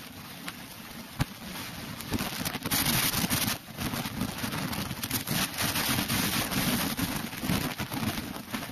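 Stream water rushing and splashing over rocks, mixed with rumbling wind and handling noise on the camera's microphone, with a few sharp knocks; it grows louder about two seconds in.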